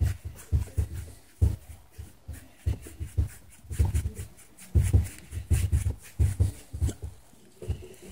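A black Labrador panting in quick, uneven puffs, about three a second at its fastest, with short pauses between runs.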